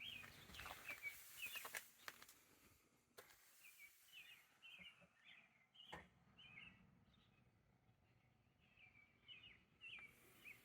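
Faint songbird chirping, short calls repeating through a near-silent background, with a few soft clicks.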